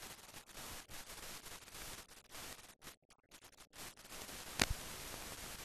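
Steady hiss of a mute newsreel soundtrack with no recorded sound, broken by brief dropouts, and one sharp click near the end.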